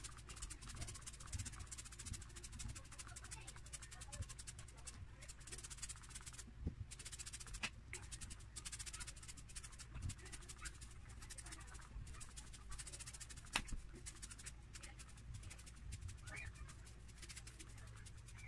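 Finger-pump mist spray bottle spraying liquid food colouring onto a cake, pumped rapidly over and over: runs of short, faint hisses with brief pauses between the runs.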